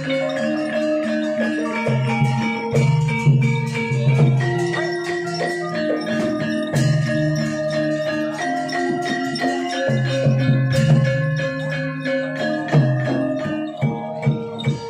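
Javanese gamelan music accompanying an ebeg dance: mallet-struck keyed instruments play a stepping melody of ringing notes over repeated low tones.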